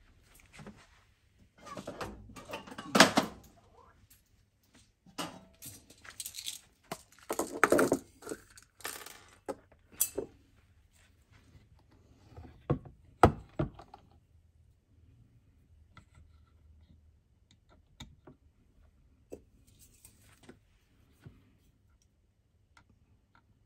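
Handling noise from a small model Stirling engine on a wooden base as it is moved and turned over on a wooden board: clattering and scraping with sharp wooden knocks about thirteen seconds in, then only faint scattered clicks.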